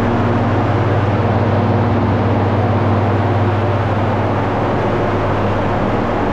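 Large 600 mm exhaust fan running steadily: a loud, even rush of air over a strong low hum, as it pulls air out of the kiln container.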